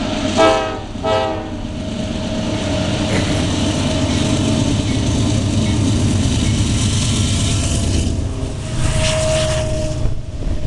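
Diesel freight locomotive sounding two short horn blasts, then running loudly as it passes close by, followed by freight cars rolling past. A steady tone swells briefly near the end.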